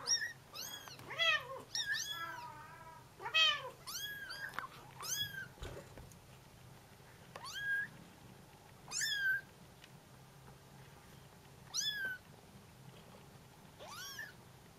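Bengal kittens mewing, high thin calls that rise and fall, several of them overlapping at first, then single calls every few seconds: kittens calling for their mother.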